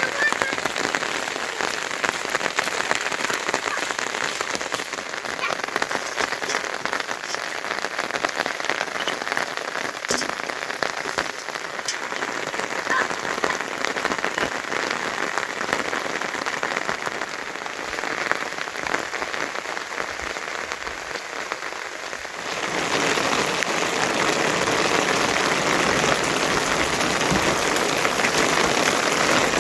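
Heavy rain falling, a steady hiss with scattered drops. It gets louder and fuller about three quarters of the way through.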